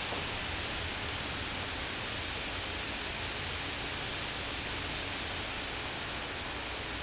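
Steady, even rushing hiss of a windy storm outdoors, holding at one level without any gust rising or falling.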